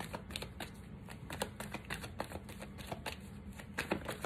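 A deck of tarot cards being shuffled by hand: a quick, uneven run of short card snaps and flicks, about four or five a second.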